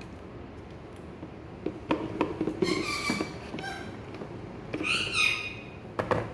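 Plastic blender jar clicking and squeaking against its motor base as it is twisted and lifted off after blending. There are a few sharp clicks, high squeaks about three and five seconds in, and two more clicks near the end.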